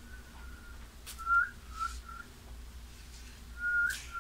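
A person whistling short notes at one pitch, each ending in a slight upward flick. A faint held note opens it, a few short notes come from about a second in, and a longer rising note comes near the end. A short sharp noise is heard about a second in and again near the end.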